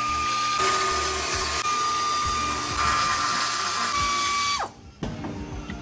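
Pneumatic air ratchet running with a steady high whine and a hiss of air as it spins exhaust flange bolts. About four and a half seconds in it cuts off, the whine dropping quickly as it spins down.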